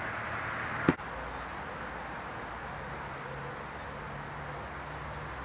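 Outdoor park ambience: a steady hiss with a low hum under it and a few faint, short bird chirps. A sharp click about a second in.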